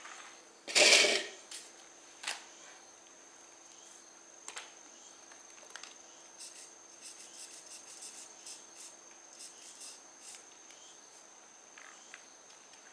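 Hands handling a nitro RC car chassis on a concrete floor: a brief loud rustling scrape about a second in, then single clicks and a run of light ticks and taps, over a faint steady high whine.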